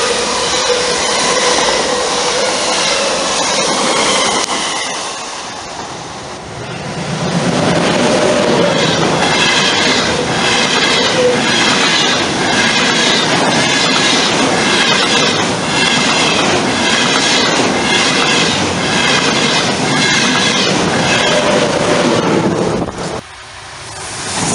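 Two coupled DB class 442 Talent 2 electric multiple units passing at speed, with a steady electric whine from their traction motors over the rush of the train. Then an ICE high-speed train rushes past with a steady rhythm of wheel clatter over the rails, a little more than one beat a second. Near the end an ICE T (class 411) approaches with a rising rush.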